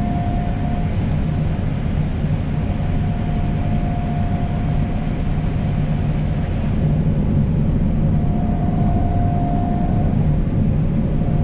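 Combine harvester running while harvesting wheat, heard from inside the cab as a steady low rumble. A thin, steady whine rises over it a few times and drops away.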